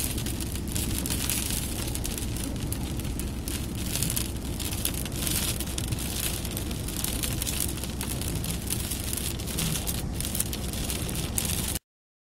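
Storm wind and heavy rain beating on a vehicle, heard from inside the cabin as a steady rush with a low rumble. It cuts off suddenly into silence about a second before the end.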